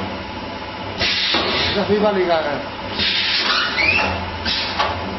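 Paper plate forming machine running, with a hiss of compressed air every one and a half to two seconds over a steady machine hum.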